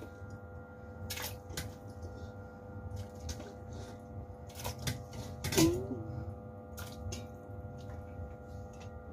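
Pieces of raw pork, chicken and chicken feet dropping off a stainless steel bowl into a steel stock pot of blended melon: scattered soft plops and splashes, with the bowl knocking against the pot, the loudest knock a little past halfway. A steady electrical hum runs underneath.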